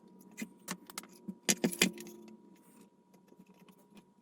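Small sharp clicks and taps of a polystyrene plastic strip and hobby tools being handled on a workbench, a quick cluster of ticks in the first two seconds, then only a faint steady hum.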